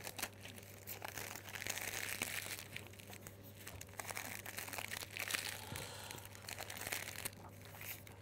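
Cellophane offcuts crinkling irregularly as they are scrunched and gathered into a bunch in the fingers.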